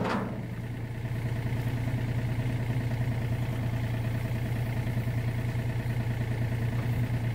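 Mini excavator's diesel engine running steadily with a low, even drone while its bucket holds a suspended load.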